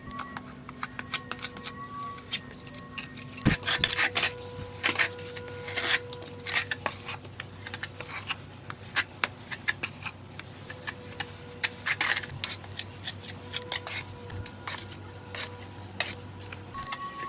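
Steel mason's trowel scraping and clinking against a mortar bucket and brickwork, an irregular run of clicks and scrapes with a sharp knock about three and a half seconds in.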